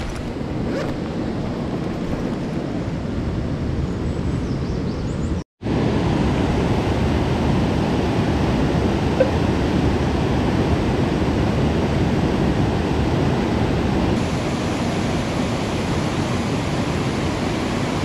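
Mountain stream rushing over boulders and rapids: a steady, even rush of water that drops out for a moment about five and a half seconds in.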